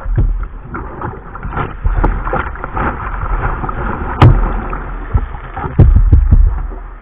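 Sea water rushing and splashing over a kayak's deck and a deck-mounted camera as the kayak rides through surf. A sharp knock comes about four seconds in, and several heavy thumps follow near the end.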